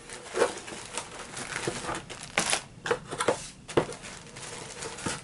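Clear plastic resealable bag crinkling and rustling as it is handled and set down, in short irregular crackles.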